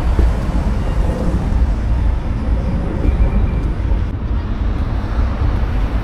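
City traffic noise with wind rumbling on the microphone, steady throughout.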